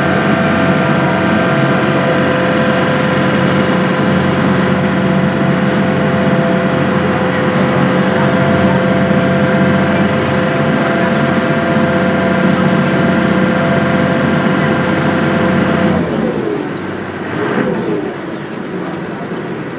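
Ferry boat's engine running at a steady hum over the rush of water. About 16 seconds in it throttles back, its pitch falling and the sound getting quieter, with a brief rise and fall in pitch shortly after as the boat slows.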